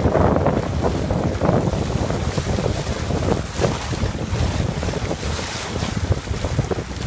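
Wind buffeting the microphone over water rushing and splashing along the hull of a Viper 640 sport boat sailing on a reach at speed. The wind rumble rises and falls in gusts.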